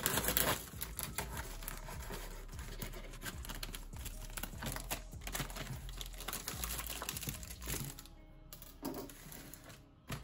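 Plastic packaging of chicken drumsticks being torn open and crinkled: a dense run of small crackles and clicks, loudest at the start and thinning out near the end.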